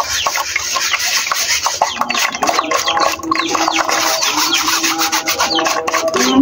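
Wire whisk rubbing and scraping against a fine metal mesh sieve in a quick run of rasping strokes, pressing risol batter through to strain out the lumps.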